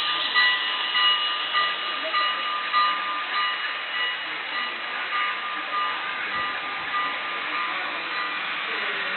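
A model railroad layout's electronic bell ringing, about one and a half strikes a second, fading out around the middle, over a steady rushing noise of running trains.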